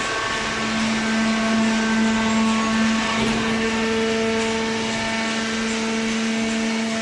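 Baling machine running with a steady mechanical hum and whine over a constant noise; the whine's pitch shifts slightly about three seconds in.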